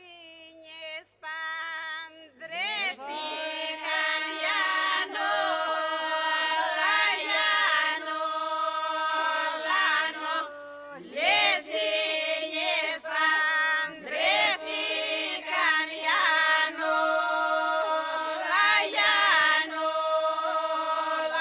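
A group of women singing a folk song unaccompanied, the voices moving over a steady held drone, with short breaks between phrases.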